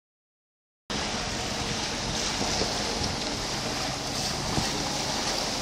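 A steady rushing hiss of water spray and wind from a jet ski–powered flyboard blasting water jets. It starts abruptly just under a second in, with no distinct engine note standing out.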